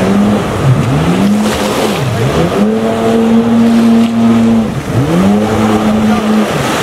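Yamaha jet ski engine revving and easing off over and over as it turns, its pitch dropping and climbing back about four times, over the rush of water spray.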